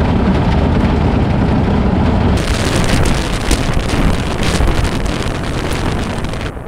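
Road noise from a Ford F-150 Lightning prototype pickup. First comes a heavy, low tyre and suspension rumble heard close to a front wheel. About two and a half seconds in it changes to tyres hissing through wet slush, with wind buffeting the microphone.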